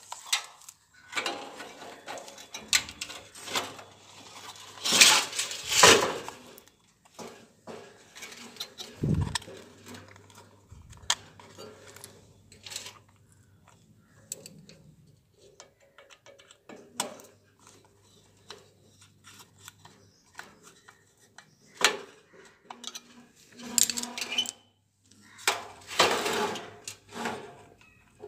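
Scattered metallic clinks, taps and scrapes as a plastic ignition box is handled and screwed onto a gas water heater's sheet-metal frame, with a few louder knocks among them.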